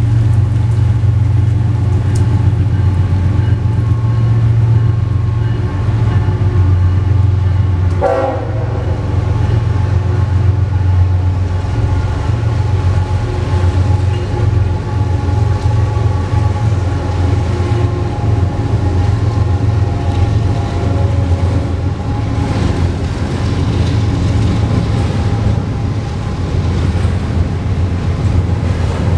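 Florida East Coast freight train passing at speed: its diesel locomotives run with a deep steady drone and the horn sounds in long held tones, with a brief falling tone about eight seconds in.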